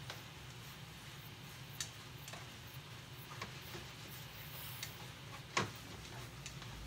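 A cooking utensil tapping and scraping against a frying pan while sweet and sour pork is stir-fried: a few scattered clicks, the loudest about five and a half seconds in, over a faint steady hiss.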